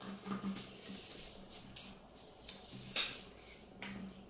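Origami paper rustling and crinkling as it is folded and creased by hand, in a run of short scratchy strokes, the loudest about three seconds in.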